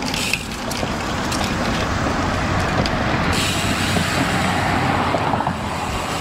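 Wind rushing over the microphone of a bicycle riding along, with road traffic passing on the road alongside. A few sharp clicks and rattles come in the first second and a half.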